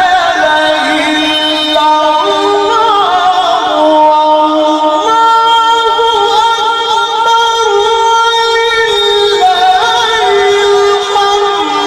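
Solo voice chanting Quran recitation in the melodic, ornamented style, holding long high notes and winding through runs between them.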